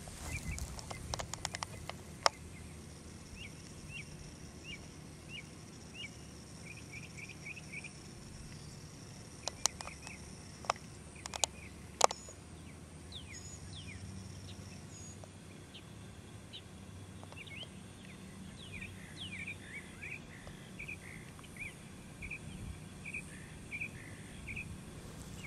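Outdoor ambience of birds chirping in short, repeated notes, with a faint steady high insect buzz in the first half. A few sharp clicks stand out around the middle.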